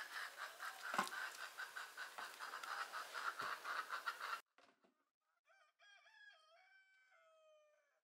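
Chickens clucking in quick, overlapping calls, with a thud about a second in and a softer one near three and a half seconds. The sound cuts out abruptly at about four and a half seconds. After a short silence, a rooster crows once, faintly, a long call ending on a drawn-out falling note.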